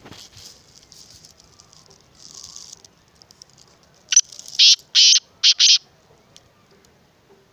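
Black francolin calling: a run of five short, loud, rasping notes in quick succession, starting about four seconds in.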